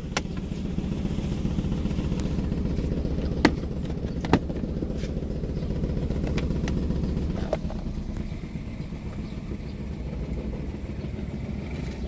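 Toyota Wigo engine idling roughly, heard from inside the cabin, with a rattling, uneven beat from a misfire on cylinder 3 caused by a broken wire to that injector (open circuit). Two sharp clicks come about three and a half and four and a half seconds in, and the engine gets a little quieter after about seven seconds.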